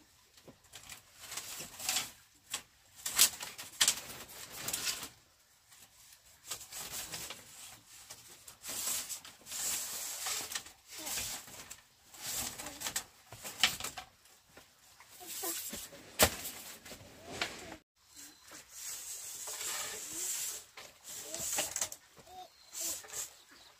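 Split bamboo slats rattling, scraping and knocking against a bamboo wall frame as they are pulled, woven in and fitted, in irregular bursts with a few sharp clacks.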